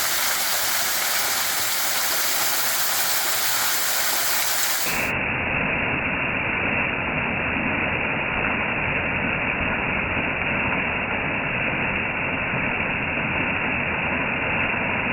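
Waterfall rushing with a steady, even roar of falling water. About five seconds in the sound abruptly turns duller as its high end drops out.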